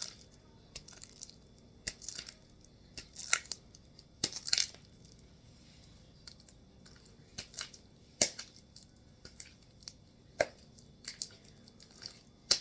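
Sticky, under-activated homemade slime being squeezed and pulled in the hands, giving irregular wet pops and crackles.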